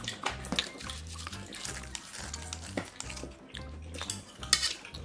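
Kitchen scissors and a metal spoon working in an aluminium pot of braised kimchi and pork ribs: repeated clinks and scrapes of metal on the pot, with wet snips, the sharpest clink about four and a half seconds in. Soft background music runs underneath.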